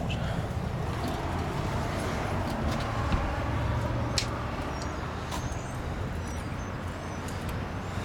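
Steady low rumble of a motor vehicle, with a few sharp clicks, the clearest about four seconds in.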